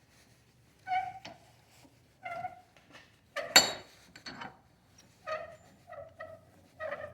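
A series of short pitched animal calls, about one every second, with a single sharp knock about three and a half seconds in.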